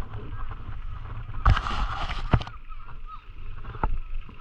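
Scott Gambler 920 downhill mountain bike on a descent: a steady low rumble of tyres on rough ground with sharp knocks from bumps, and a hissing burst lasting about a second that starts about a second and a half in.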